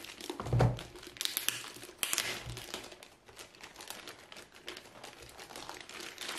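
Clear plastic bag crinkling and rustling as hands pull it open and slide it off a small network appliance, with the loudest rustle and a low bump about half a second in.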